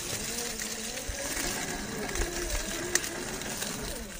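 RC rock crawler's 550 brushed motor and gearbox whining, the pitch rising and falling with the throttle as it crawls over rocks. A sharp click about three seconds in.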